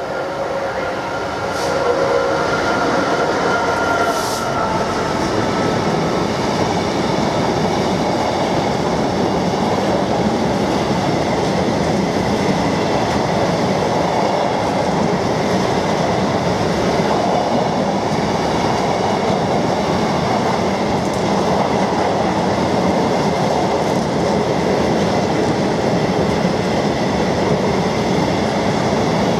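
Freight train passing close at speed: a DB Class 66 diesel locomotive, its EMD two-stroke engine heard in the first few seconds, then a long rake of empty flat wagons rolling steadily past on the track.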